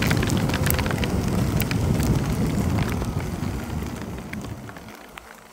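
Motorcycle wind and road rumble fading away steadily as the bike slows to a stop in heavy rain, with raindrops ticking sharply on the microphone throughout.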